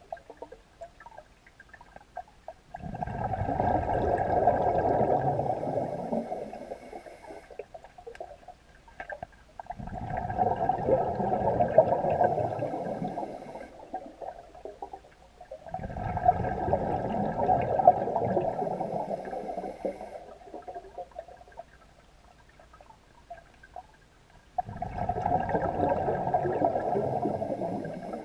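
Scuba regulator breathing heard underwater: four long bursts of exhaled bubbles about every six to seven seconds, with quieter gaps between for the inhalations.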